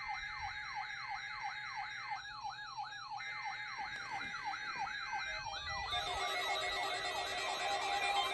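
NOAA Weather Radio warning alarm set off by the weekly test, sounding through alert receivers: a siren-like sweep repeating about three times a second over a steady tone. About six seconds in, more alarm tones join and it gets louder.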